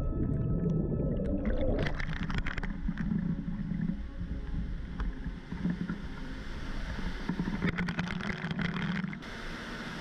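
Churning, rushing water with a low rumble, broken by irregular bursts of sloshing about two seconds in and again near the end.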